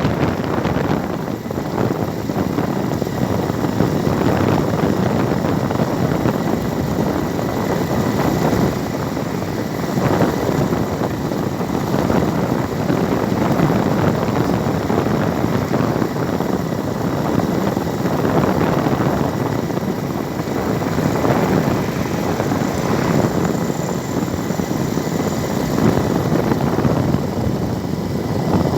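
Steady rumbling noise of a vehicle travelling on the road, swelling and easing slightly.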